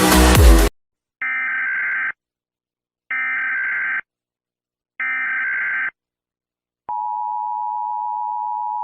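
Electronic dance music cuts off under a second in, followed by three short Emergency Alert System SAME data-header bursts, each just under a second long with about a second of silence between them. Then the steady two-tone EAS attention signal begins about two seconds before the end.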